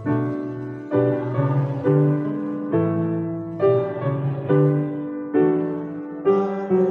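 Grand piano playing a hymn in slow chords, a new chord struck about once a second and dying away under the next.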